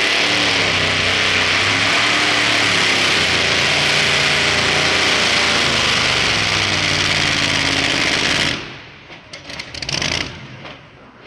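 Super modified two-wheel-drive pulling truck's engine at full throttle under load as it drags the sled, loud and steady. About eight and a half seconds in it cuts off suddenly, leaving a few scattered crackles.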